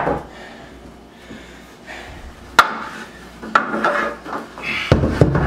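Wooden bunk bed headboard and footboard panels knocking and rubbing as they are handled and shifted: scattered sharp knocks, a cluster of clunks a little past halfway, and heavier thumps near the end.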